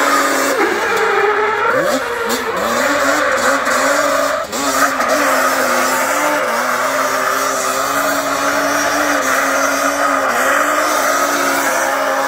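Stunt quad bike's engine held at high revs as it spins donuts, its rear tyres spinning and squealing on the tarmac. The revs dip and climb quickly a few times early on, then hold steady, with a short drop and a sharp pop about four and a half seconds in.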